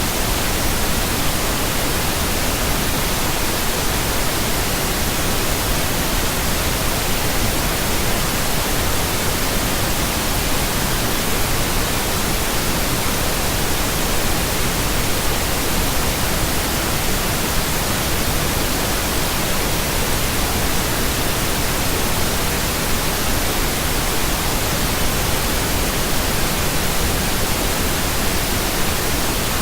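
Synthesized pink noise: a steady, unchanging hiss with no tones or events in it.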